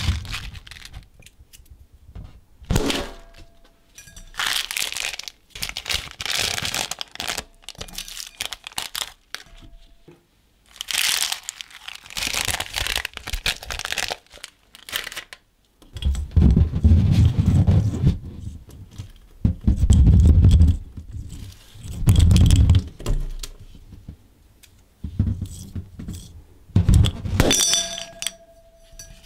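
Hands handling small plastic zip-lock bags and slime-making supplies: irregular crinkling and rustling of the plastic, with dull thumps in the second half and a brief ringing tone near the end.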